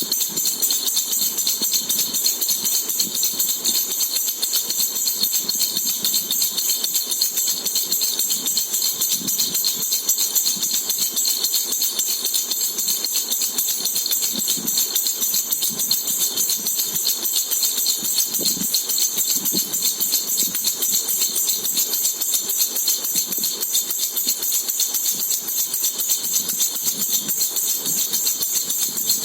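Jhunjhuna baby rattle shaken rapidly and without pause, a continuous fast jingling.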